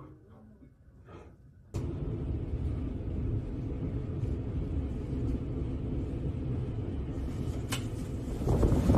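Passenger train running, a steady low rumble heard from inside the carriage, cutting in abruptly a couple of seconds in. A sharp click comes near the end, and the noise grows louder in the last half-second.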